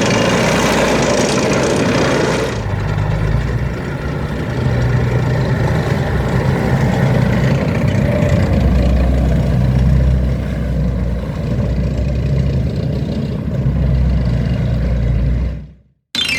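A motor vehicle's engine running with a steady low drone under a wash of road or wind noise. About two and a half seconds in, the hissy top end drops away, and near the end the sound fades out.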